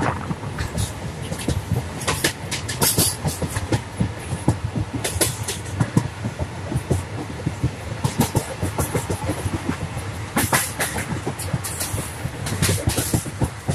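Passenger train running through hilly forest, heard from on board: a steady rumble with frequent irregular clacks and rattles of the wheels and carriage over the track.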